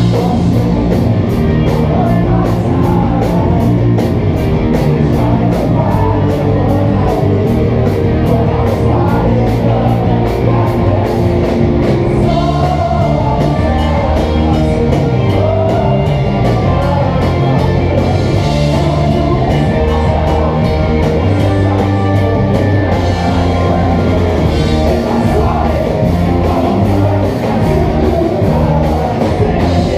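Live rock band playing loudly with sung vocals, electric guitars and drum kit, heard from the front of the crowd, with a quick steady beat through the first half.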